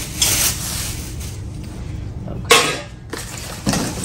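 Metal tube parts of a rolling laptop stand being handled and laid down, with one sharp clank and a short ring about halfway through, and a softer knock shortly after, over a steady low hum.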